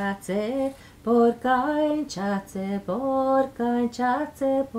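A woman singing a yoik melody alone, unaccompanied: a run of short notes with a few longer held ones.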